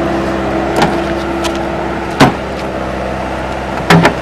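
Skid-steer loader engine running steadily, with several sharp clanks of broken concrete chunks being dropped into its steel bucket: one about two seconds in and a pair near the end are the loudest.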